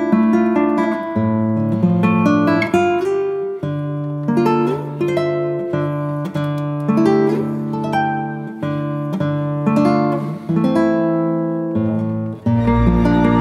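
Background music: acoustic guitar picking a melody over changing chords, with a fuller, sustained passage coming in near the end.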